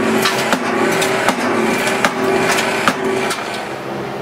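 Wooden board striking a running stand mixer again and again, sharp cracks roughly once a second over the electric motor's steady hum. The hum stops about three-quarters of the way through.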